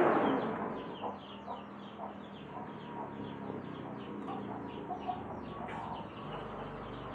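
Birds calling in the background: a quick run of short high chirps, about three a second, with lower clucking calls among them.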